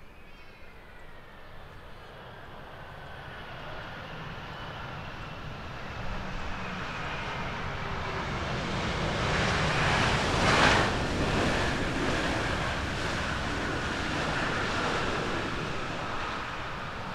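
Boeing 777-200 airliner's jet engines on the landing roll as it passes close by. The rushing noise swells to its loudest about ten seconds in and then eases, with a high engine whine sliding slowly down in pitch.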